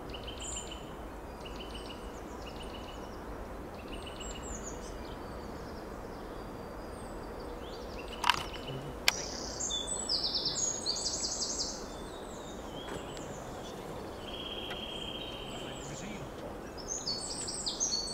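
Small songbirds singing over steady background noise: repeated short chirps at first, then a louder, more varied song about ten seconds in and a short trill later. Two sharp clicks come about eight and nine seconds in.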